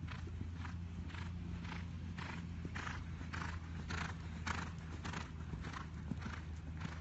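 A horse cantering round a show-jumping course: an even beat with its stride, a little under two strokes a second, over a steady low hum.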